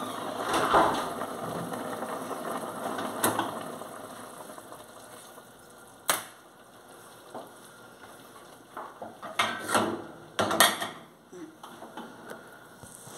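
Kitchen clatter: a noisy hiss fades over the first few seconds, single sharp knocks come about 3 and 6 seconds in, then a cluster of knocks and rubbing as the phone that is recording is picked up and handled near the end.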